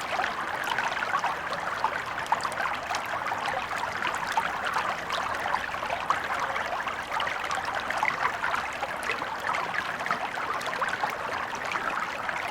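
A shallow river or stream flowing over stones: a steady babbling and trickling of water.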